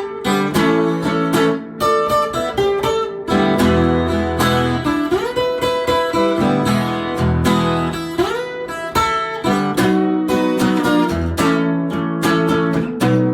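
Instrumental break of a blues song: strummed acoustic guitar with bass notes, and a few notes bending up in pitch around the middle.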